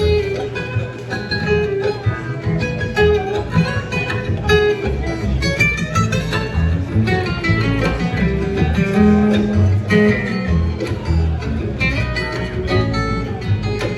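An acoustic string band playing an instrumental passage, with picked guitar over a bass line.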